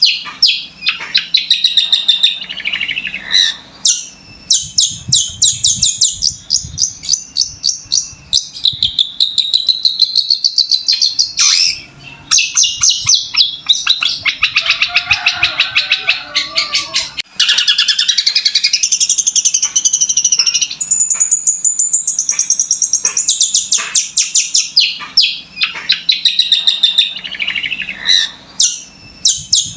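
Long-tailed shrike (cendet) singing continuously: fast runs of repeated high chirps and trills, a mimicked medley of lovebird and Eurasian tree sparrow calls.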